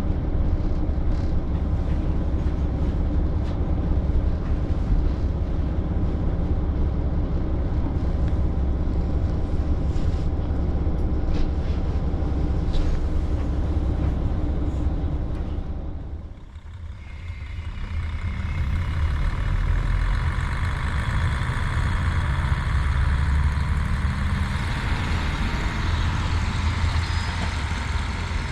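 JNR KiHa 40 diesel railcar running, heard on board: a steady low diesel rumble with wheel and rail noise. The sound drops away briefly about two-thirds of the way through, then comes back with more rattle and rail noise.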